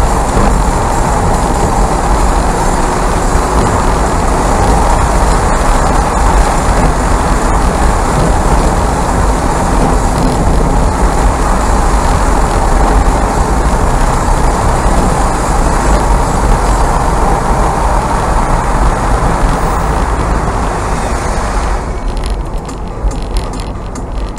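Mazda MX-5 driving, heard on board: steady engine and road noise. About 22 seconds in, the hiss drops away and the sound gets a little quieter.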